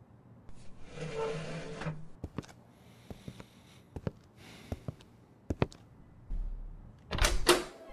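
Prison sound effects: a second-long scraping hiss, then a series of separate clicks and knocks, like footsteps and handling of a cell door, ending in two loud knocks near the end.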